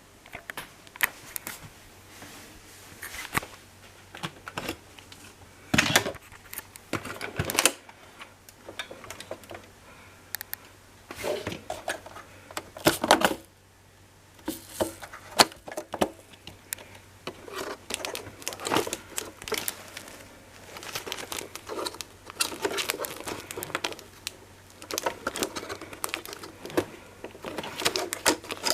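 Irregular clicks, knocks and rustling of hard plastic parts and packaging being handled, as a Miele Cat & Dog canister vacuum is unpacked or put together. A few sharper knocks stand out, about six, seven and a half, thirteen and fifteen seconds in. The vacuum motor is not running.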